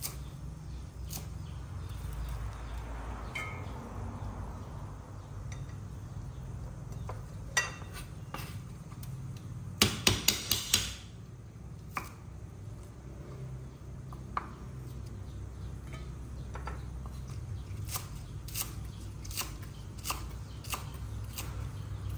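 Large kitchen knife chopping celery and spring onion stalks on a wooden chopping board: scattered knocks of the blade on the board, with a quick run of about six loud chops about ten seconds in, over a steady low hum.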